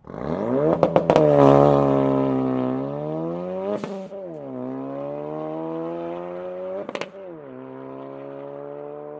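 Ford Focus RS's turbocharged 2.3-litre four-cylinder engine and exhaust pulling through the gears. The pitch climbs and drops suddenly at two upshifts, about four and seven seconds in, then holds steady. Sharp cracks come near the first second and at each shift.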